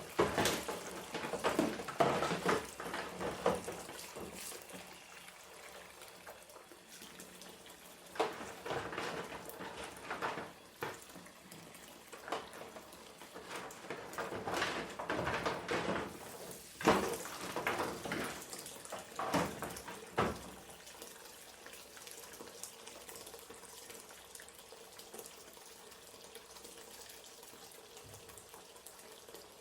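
Washing up at a kitchen sink: water running from the tap, with bursts of splashing and sharp knocks of dishes being handled through the first twenty seconds or so, then only a quieter, steady flow.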